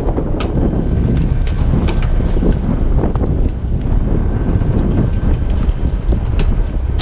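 Steady wind buffeting the microphone aboard a small fishing boat at sea, with scattered sharp clicks and knocks as cod and jigging gear are handled on deck.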